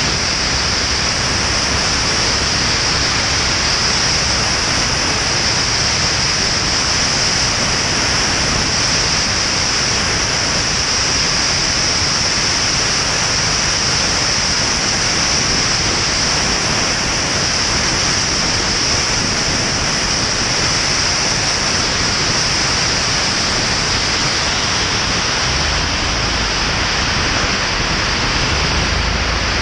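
Steady rush of wind and propeller noise on an outside-mounted camera of a Van's RV-10 light aircraft on final approach. A deeper rumble comes in near the end as the wheels touch down and roll on the runway.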